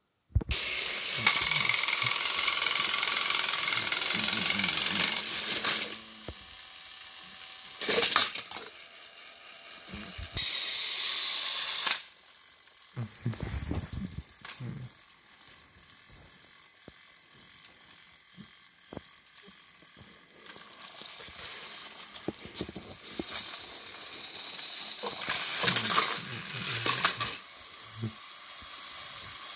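Motorised Thomas & Friends toy train engines running on plastic track: a loud electric motor whir for about the first six seconds, then quieter running with rattles and knocks, and a burst of clicking and clattering a few seconds before the end.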